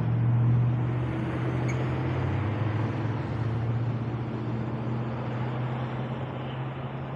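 A vehicle engine runs with a steady low hum under road and wind noise while driving in traffic. It is loudest about half a second in, then holds fairly even.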